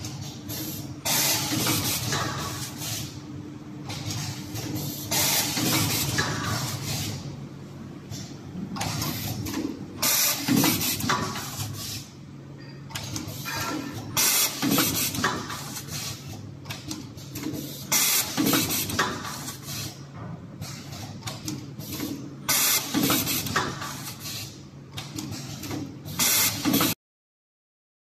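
Semi-automatic cable seal inserting and crimping machine cycling: a pneumatic hiss and clatter about every four seconds over a steady machine hum.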